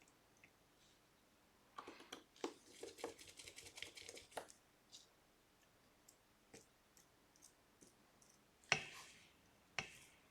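Faint small clicks and ticks of tiny screws being driven back into an iPhone 12 with a screwdriver: a quick run of ticks about two to four seconds in, then two sharper clicks near the end.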